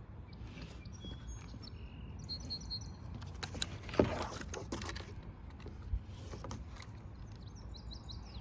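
A few sharp knocks over low wind rumble and chirping birds. The loudest knock is about four seconds in, with a smaller one near six seconds.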